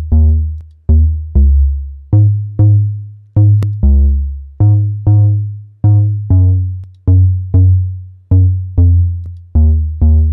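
Bass line of short plucked notes, each dying away, repeating in a steady pattern about two notes a second, played through the Spectre multiband saturator plugin.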